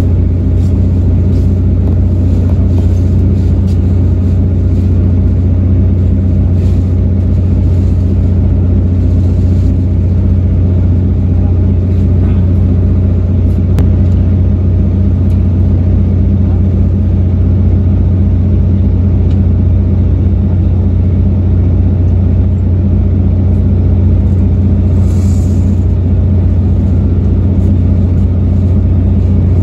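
Steady low rumble and drone of a moving passenger train, heard from inside a former Japanese National Railways coach, with a few faint clicks and a short hiss near the end.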